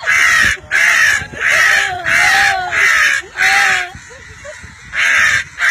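A person imitating a crow's caw to call crows in: loud, harsh caws about one and a half a second, about seven in all, with a break of about a second near the end.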